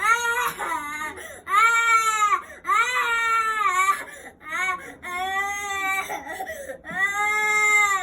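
A baby crying hard in a series of high-pitched wails, about six in a row, each rising and falling over roughly a second, with short breaths between them.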